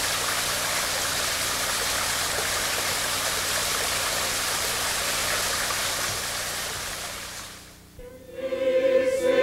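Steady rushing water, like a stream, fading out about seven to eight seconds in. Music then comes in with a long held note.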